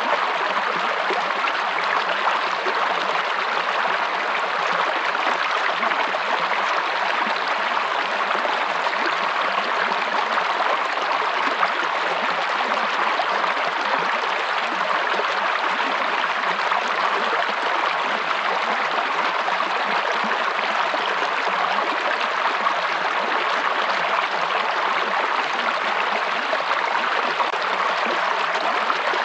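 Running water of a stream, flowing steadily with an even rushing noise that does not change.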